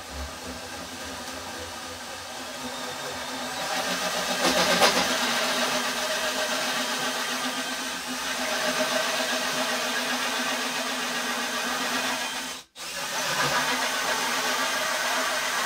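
DeWalt DCD999 cordless drill running an 83 mm hole saw through thick wood, its motor working hard under load. The motor struggles a bit. It picks up in loudness a few seconds in as the saw bites, and breaks off for a moment near the end before carrying on.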